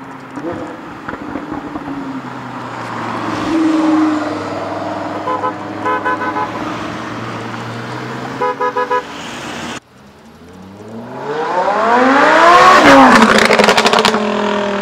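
Lamborghini Huracán's V10 with an Akrapovič exhaust running at low revs, while a car horn sounds in two quick runs of short beeps. After a sudden cut, the engine revs hard, its pitch rising then falling, with crackles from the exhaust near the end.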